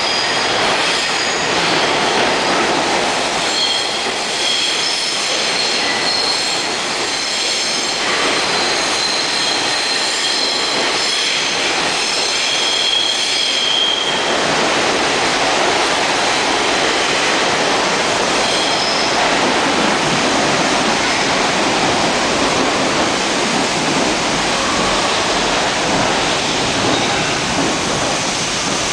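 New York City Subway R42 train moving through an underground station: steel wheels squeal high on the rails for the first half, then the cars run on with a steady rumble.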